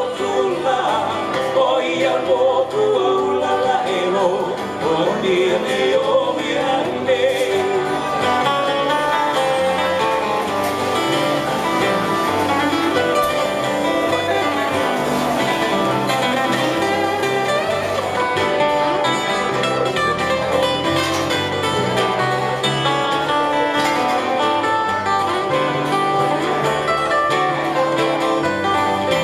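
Live acoustic Hawaiian music: strummed acoustic guitars over a bass guitar, with singing.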